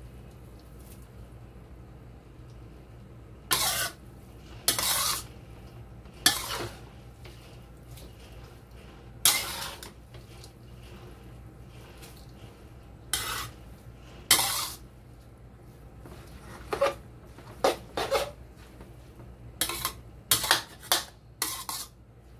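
A spatula scraping and knocking against a wok as rice vermicelli is stir-fried and tossed. It comes in short bursts every few seconds, closer together near the end, over a faint steady low hum.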